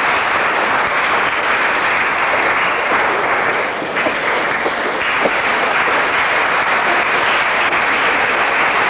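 Audience applauding steadily, a dense clapping that dips briefly about four seconds in, welcoming couples as they walk in.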